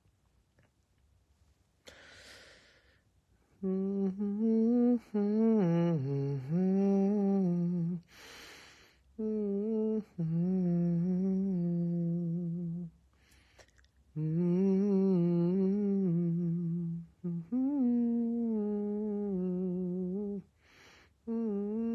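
A man humming a slow melody close to the microphone, in phrases of a few seconds with vibrato, each phrase set off by a quick breath in.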